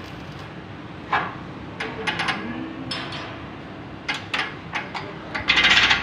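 Metal clanks and knocks from the steel folding linkage of a tractor-mounted tine cultivator as a long lever bar is worked, a handful of separate strokes, then a louder clatter lasting about half a second near the end.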